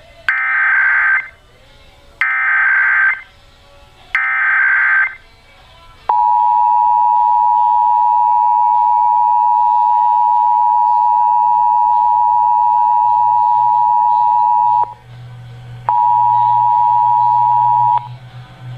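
Emergency Alert System Required Monthly Test on a radio broadcast: three short bursts of SAME digital header tones, then the two-tone EAS attention signal held for about nine seconds, which breaks off and sounds again for about two seconds near the end.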